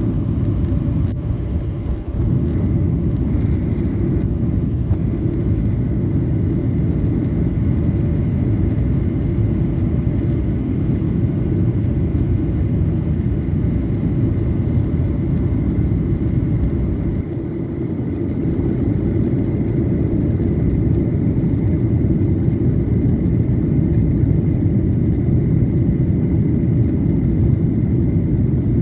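Passenger jet during landing, heard from inside the cabin: a steady low roar of engines and airflow with a thin high whine running through it, dipping briefly about two-thirds through.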